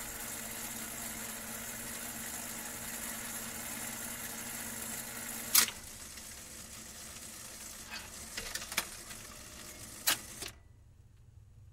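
Vinyl record surface noise on a jukebox: a steady crackle and hiss with a faint low hum. A sharp click comes about five and a half seconds in and another near ten seconds, and after that it falls nearly silent.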